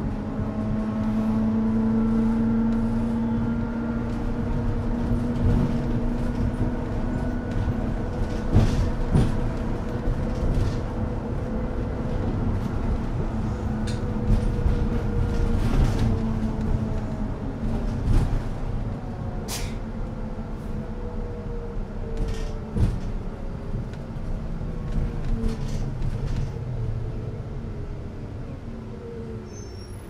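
City bus heard from inside the cabin: a steady mechanical hum from the bus's running machinery, with scattered clicks and rattles. Near the end the hum's pitch falls and it grows quieter.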